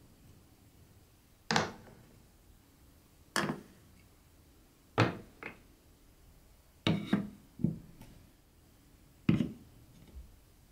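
Wooden marble-run blocks and track pieces being set down on a wooden construction: separate wooden knocks every second or two, about eight in all, a few in quick pairs.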